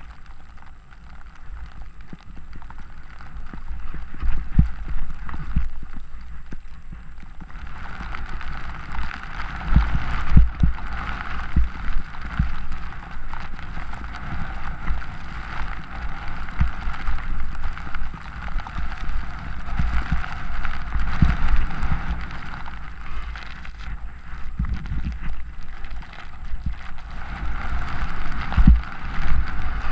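Wind buffeting the microphone of a camera carried down a ski slope, with a steady hiss of sliding over fresh snow that grows louder about eight seconds in.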